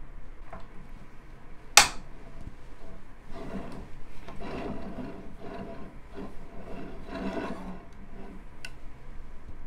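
A single sharp click about two seconds in, then woven alpaca cloth rustling and rubbing in uneven spells as it is unrolled from a wooden Ashford SampleIt loom and handled, with a small click near the end.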